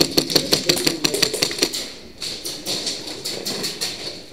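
Airsoft guns firing: a fast, even string of about seven shots a second for the first couple of seconds, then scattered, fainter shots.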